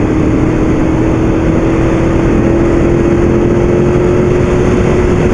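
Aprilia Tuono V4 APRC's V4 engine running through its stock exhaust while the bike is ridden, its note holding steady and rising slightly. Wind rushes over the microphone.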